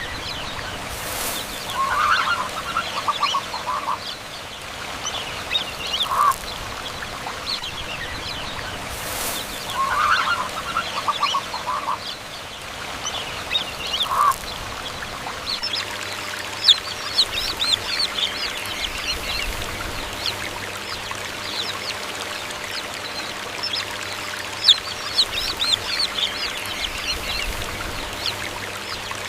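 Indian peafowl giving bouts of short, rapidly repeated honking calls, about every four seconds through the first half. From about halfway, dense high chirping of smaller birds takes over.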